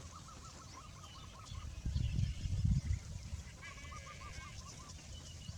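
A bird, probably a farmyard fowl, calls in two runs of rapid repeated notes, one about a second in and one about two-thirds through. Small birds chirp faintly, and loud low thumps come around two to three seconds in.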